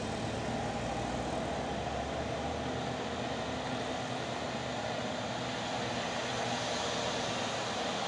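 Steady drone of a convoy of tour buses' diesel engines climbing a steep hill toward the listener, still some way off. Its deepest rumble fades after about two seconds.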